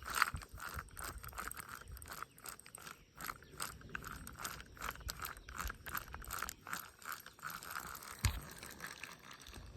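Zebco push-button spincast reel being cranked to retrieve a lure, a steady run of rapid mechanical clicking and whirring from the reel's gears. A single bump about eight seconds in.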